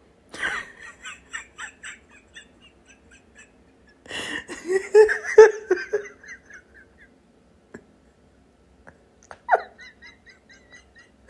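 A person laughing in three bouts of short repeated pulses that trail off: one about half a second in, a louder one about four seconds in, and a shorter one near the end.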